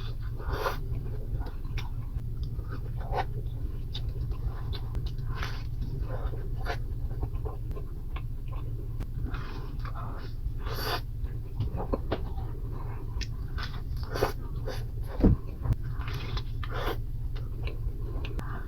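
Close-up chewing and mouth sounds of someone eating a grilled macaroni-and-cheese sandwich: irregular wet smacks and crunches over a steady low hum, with one louder thump about fifteen seconds in.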